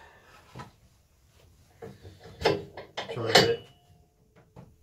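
Knocks and clunks of a steel English-wheel frame being clamped in a bench vise between plywood blocks: a small click near the start, then a few sharp knocks about halfway through, the loudest leaving a short metallic ring.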